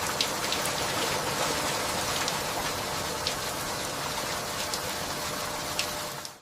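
Steady, heavy rain falling, a dense hiss with individual drops ticking sharply here and there; it cuts off suddenly at the end.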